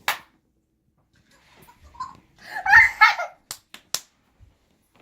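Hand claps, followed by a short giggling chatter from a WowWee Fingerlings interactive baby monkey toy reacting to the clap, then a few more quick claps.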